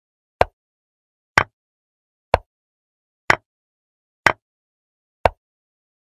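Chess-board move sound effect: a short, sharp click about once a second, six in all, one for each move as the pieces are played.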